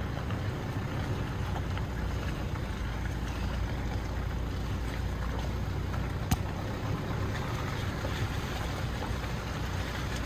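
Car driving along a forest road: steady low rumble of engine and tyre noise, with a single sharp click about six seconds in.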